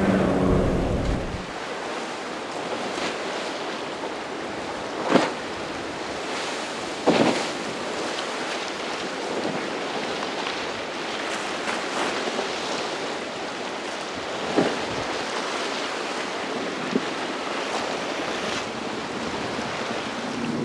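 Steady rush of wind and breaking surf on the microphone, with a few short, sharp splashes along the way. A boat engine's drone cuts off about a second in.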